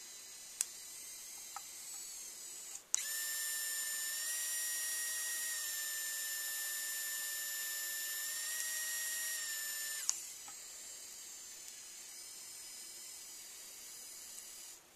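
3Doodler 3D printing pen running with a steady whir. From about three seconds in until about ten seconds its drive motor runs with a louder, steady whine as it feeds and extrudes plastic, starting and stopping with a click.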